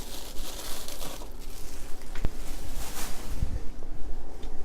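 Raw chicken being handled and rubbed with marinade scooped from the bottom of the plate: irregular wet squishing and rubbing, with one sharp click about two seconds in.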